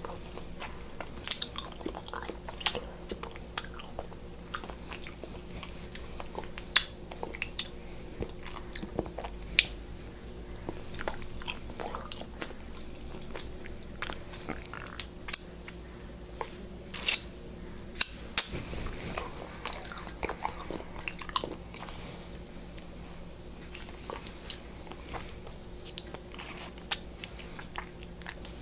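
Close-miked mouth sounds of eating: biting and chewing food with small wet clicks and crunches scattered throughout, and a few louder crunching bites just past halfway.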